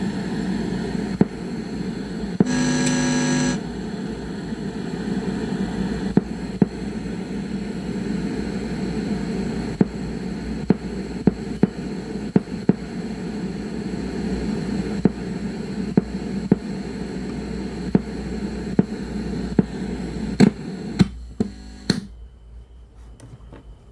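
A portable radio's speaker giving out a steady hum and noise instead of a station, with frequent sharp crackles. A short buzzing tone comes a few seconds in. The output drops away sharply near the end.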